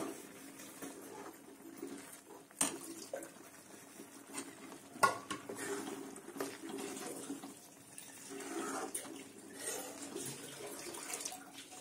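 Steel spoon stirring thick, wet potato curry in an aluminium kadai, with a few sharp clinks of the spoon against the pan.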